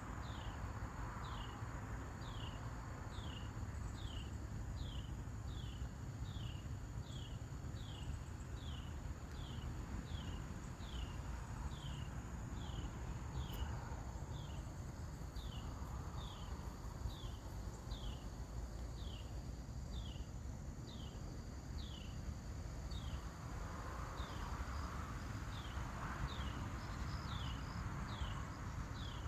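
A small animal's high chirp, each one falling in pitch, repeated very regularly a little more than once a second, over a steady high drone and low background rumble.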